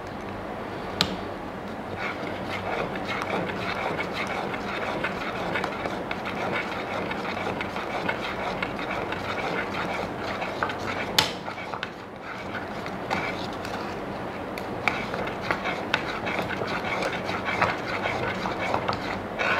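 Metal spoon stirring thick barley-and-date porridge in a stainless-steel electric pot: a steady scraping with many small clicks. A few sharper clinks of the spoon on the pot come about a second in and again near the middle.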